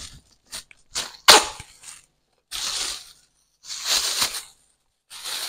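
Thin plastic bag crinkling and rustling in three short bursts as a ball of dough is wrapped in it, after a few light taps and one sharp click about a second in.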